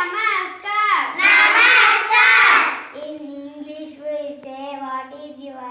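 Children singing together in chorus, loud for about three seconds, then dropping to softer singing with long held notes.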